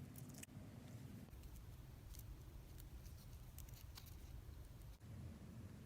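Near silence: a low steady hum with a few faint small clicks of wire cutters and strippers working on the reader's cable wires.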